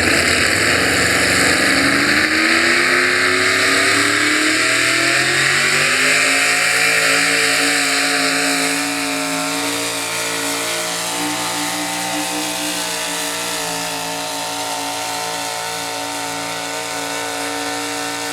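Pickup truck engine running hard under load at high revs. Its pitch climbs over the first several seconds, then holds steady and gets a little quieter past the halfway point.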